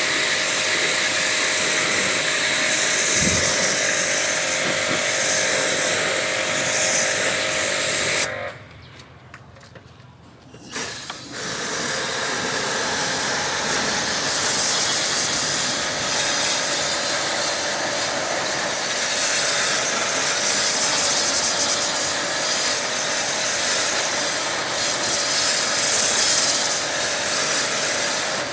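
High-pressure water spray from a pressure washer, a loud steady hiss with a motor hum under it, washing out a dirty split air conditioner. It cuts off for about two seconds a third of the way in, then starts again.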